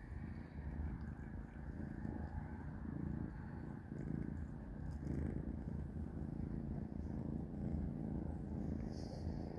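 Kitten purring, a low rumble that swells and eases about once a second.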